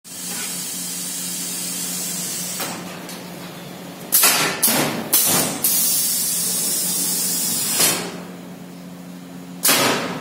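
Pneumatic cylinders on a steel fixture actuating, with compressed air exhausting from their valves in sudden loud hisses: four in quick succession about four seconds in, the last running on to about eight seconds, and one more near the end. A steady low hum runs underneath.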